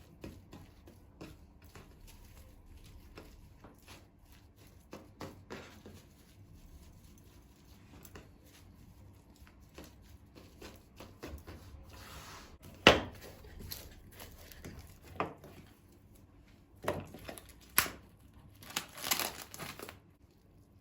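Hands handling things: crinkling and rustling with scattered light taps and knocks, one sharp knock about 13 seconds in and a burst of crinkling near the end.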